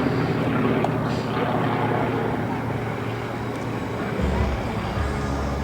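Yakovlev Yak-50/Yak-52 nine-cylinder Vedeneyev M-14P radial engine running steadily in flight, its note shifting about four seconds in.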